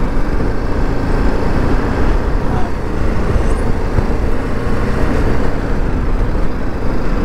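Strong wind buffeting the microphone: a loud, unsteady low rumble.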